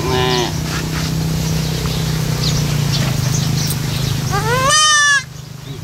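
Young goat kid bleating: a short bleat right at the start, then a longer, louder bleat that rises in pitch about four and a half seconds in. A steady low hum runs underneath.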